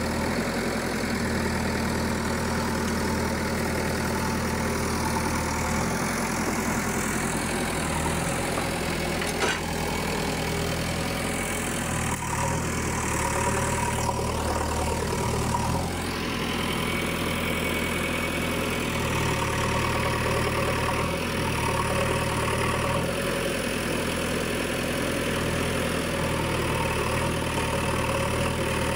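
JCB 3DX backhoe loader's diesel engine running as the machine climbs a steep bank, its note shifting up and down several times.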